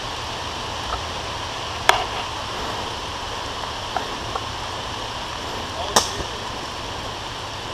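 Airsoft gun firing two sharp single shots about four seconds apart, with a couple of fainter ticks between them, over a steady hiss of light rain.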